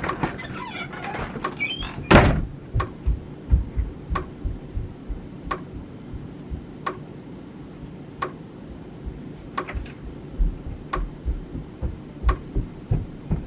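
A door bangs once about two seconds in, then a faint, steady ticking, about three ticks every two seconds, with soft low thumps in the background.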